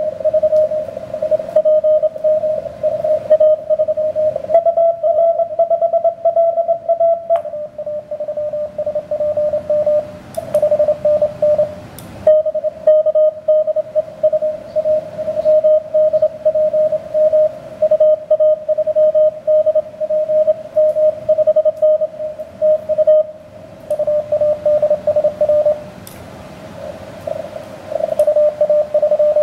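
Morse code (CW) tones from a ham radio transceiver tuned to the 17-metre band: a keyed tone near 600 Hz over band hiss. About five seconds in, a slightly higher-pitched signal keys for a couple of seconds, and the keying pauses briefly, leaving only hiss, a few seconds before the end.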